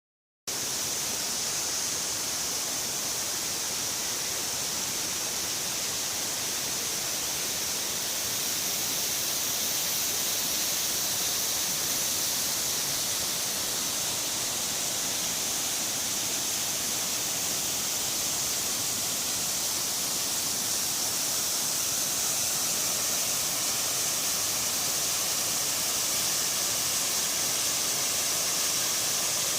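A waterfall and a mountain stream rushing, a steady hiss of falling and flowing water that starts about half a second in.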